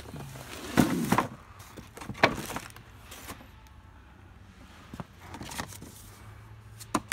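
Plastic wrapping rustling and items being handled in a crate, with several sharp knocks and clatters. The loudest come about one and two seconds in.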